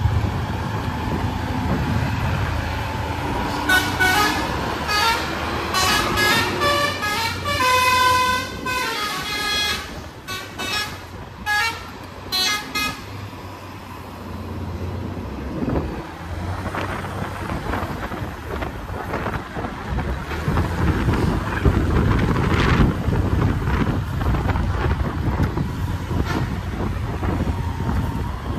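A bus's multi-tone horn sounding a run of short toots and a few longer held notes at changing pitches, starting about four seconds in and stopping about thirteen seconds in. Engine and road noise from a vehicle on the move runs underneath.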